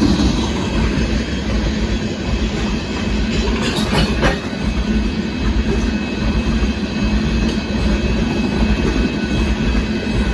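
Union Pacific sand train rolling past: a steady rumble of wheels on the rails, with a few sharp clicks about four seconds in.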